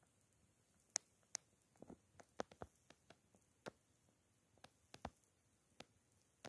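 Near silence, broken by about fifteen faint, sharp clicks and taps at irregular intervals, most of them between the first and third seconds.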